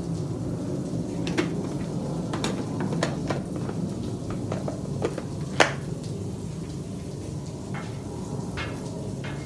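Butter sizzling and spitting as it melts on a hot flat-top griddle, with scattered sharp pops and crackles over a steady low rush; the sharpest pop comes a little after halfway.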